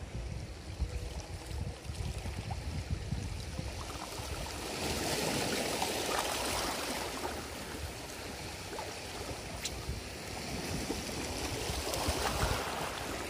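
Small sea waves washing and lapping at the shoreline, swelling a few seconds in and again near the end, with wind rumbling on the microphone.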